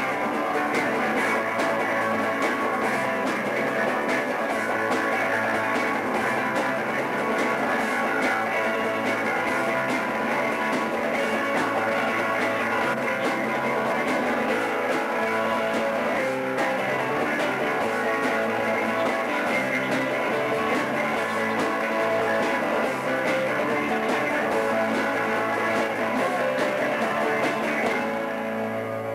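Live rock band playing an instrumental passage on electric guitars, electric bass and drum kit, with no singing. Near the end the drums stop and the final chord rings on as the song ends.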